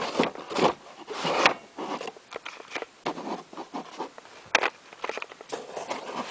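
Handling noise: irregular clicks, knocks and short scraping rubs as the plastic airsoft gun is moved and handled.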